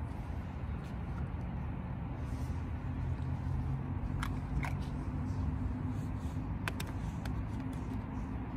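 Steady low outdoor rumble, with a few faint, short clicks about halfway through and again a little later.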